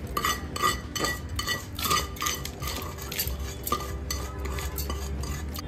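A slotted spatula scraping dry-roasted red chillies and coriander seeds out of a frying pan into a steel mixer-grinder jar: repeated short scrapes, with the seeds rattling against the pan and into the jar.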